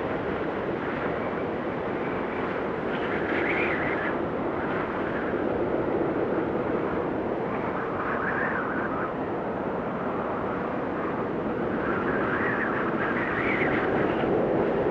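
Blizzard wind blowing steadily, with gusts that swell and rise in pitch three times.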